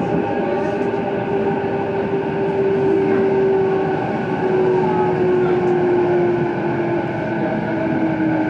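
Traction motors and Mitsubishi IGBT VVVF inverter of a JR East E233-2000 series motor car whining under the floor, over steady wheel and track rumble; this unit's motor whine is louder than on other E233-2000 sets. The whine is one tone that sinks slowly in pitch as the train slows for the next station.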